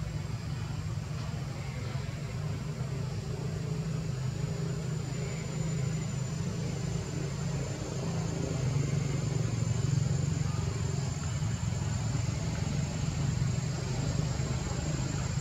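Steady low rumble like a running engine, with a thin, steady high-pitched whine above it.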